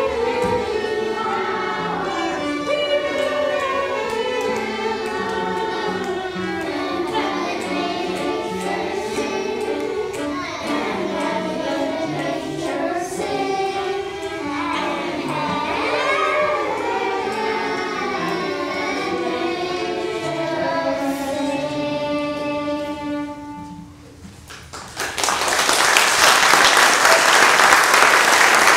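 A group of children singing a song together, ending on a long held note. After a short pause, applause breaks out near the end.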